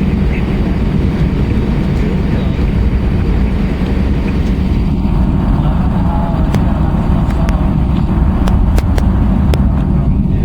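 Airbus A320's IAE V2500 jet engines and airflow, a loud steady rumble heard inside the cabin, with a few sharp clicks or knocks in the second half.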